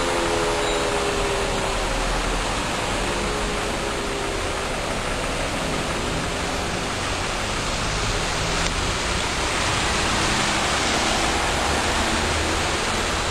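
Civil-defence air-raid motor siren winding down: its falling wail dies away within the first few seconds. A steady rushing noise fills the rest.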